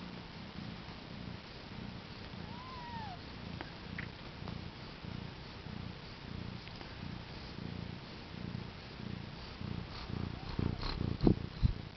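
Mother cat purring steadily while nursing newborn kittens. A short high squeak comes about three seconds in, and a few sharp knocks near the end.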